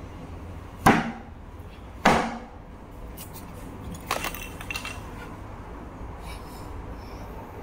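Two sharp wooden knocks about a second apart as a drawer is pushed and jolted against its cabinet, followed by a lighter run of clattering knocks about four seconds in as the drawer is handled.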